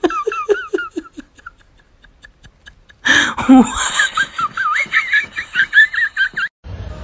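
A person laughing: a quick run of short 'ha' bursts at the start, then after a short pause a louder, longer stretch of high-pitched laughter that cuts off suddenly near the end.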